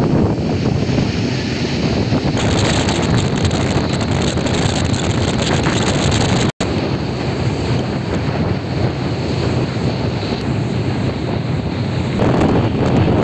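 Wind buffeting the microphone on a moving boat, a steady rumbling rush over the noise of the boat under way on open water. It cuts out for an instant about six and a half seconds in.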